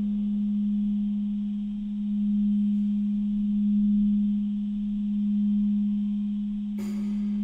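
A steady low drone tone from the soundtrack, swelling and ebbing slowly every second or two. A short rush of noise comes near the end.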